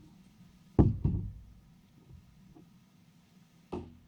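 Hard knocks: a sharp one about a second in with a second right after it, faint small taps, then another thump near the end.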